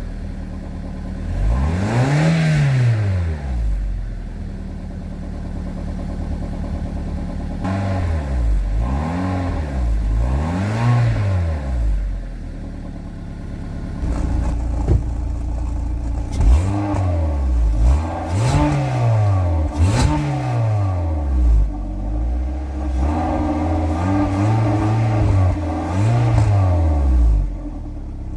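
Volkswagen Golf Mk4 estate's engine and exhaust, heard from the rear of the car, idling between about ten quick blips of the throttle, each revving up and dropping back within a second or two, kept to about 4,000 rpm or below.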